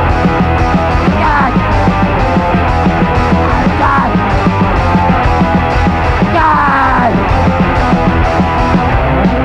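Loud hardcore punk song: distorted band with a fast, steady drum beat, and falling slides in pitch about a second in and again around six seconds in.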